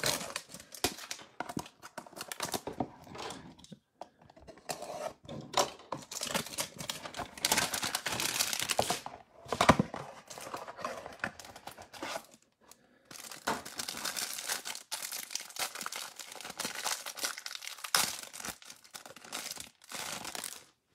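A cardboard trading-card hanger box being torn open by hand and the plastic wrap around the stack of cards crinkled off: irregular tearing and rustling with small clicks.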